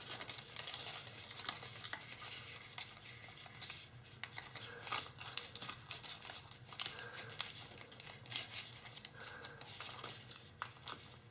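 Tissue foil (tissue paper backed with kitchen foil) rustling and crinkling faintly as fingers fold, press and flatten small layered creases, with many light crackles scattered throughout.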